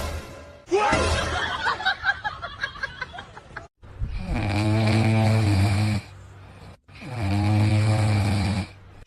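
Snoring: two long snores of about two seconds each, after a few seconds of irregular noisier sounds.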